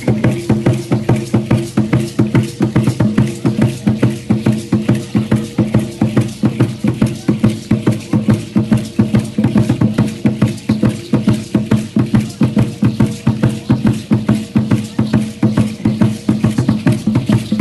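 Drum-led music for Aztec-style (danza azteca) dancing: a fast, even drumbeat with clicking percussion that keeps going without a break.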